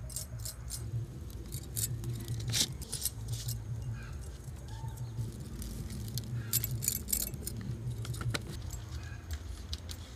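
Scattered light clicks and clinks of hands at work preparing food, a peeler scraping a root and jar and bangles being handled, some in quick bunches, over a low steady hum.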